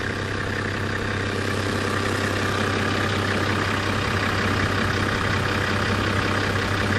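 A 4WD's engine running steadily, a constant low hum under broad mechanical noise.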